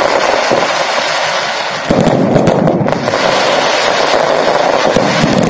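Fireworks going off in a dense barrage of rapid, overlapping crackles and pops, growing louder about two seconds in.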